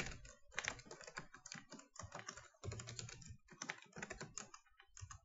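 Faint, quick, irregular key clicks of a computer keyboard as a password is typed into both the password and confirm-password fields; the typing stops shortly before the end.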